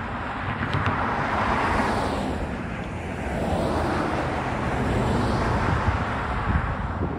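Road vehicles, including a pickup truck, driving past close by one after another. Their tyre and engine noise swells twice: once about a second in, and again from about four to six seconds.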